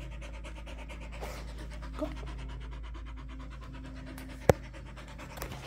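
Dog panting fast and evenly. A single sharp click about four and a half seconds in is the loudest sound.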